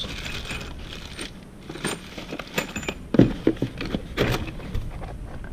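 Small metal engine parts clinking and rattling in their packaging as they are handled and unboxed, with irregular knocks and rustles.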